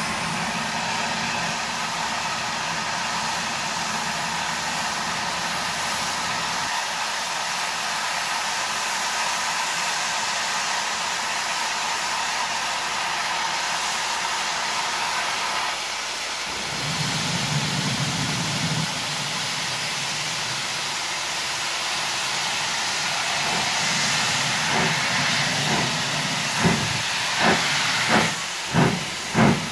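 Lancashire and Yorkshire Railway steam locomotive standing with a steady hiss of steam, then starting away: slow, evenly spaced exhaust chuffs begin near the end, amid billowing steam.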